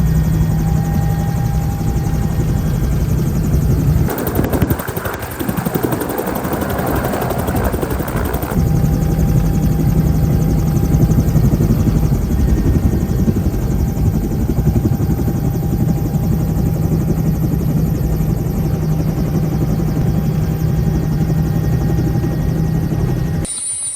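Twin-engine helicopter heard from inside the cabin: a steady low hum of rotor and turbines over a loud rush of noise. About four seconds in, the hum gives way for several seconds to a rougher, hissier rush, then returns, and the sound drops away sharply just before the end.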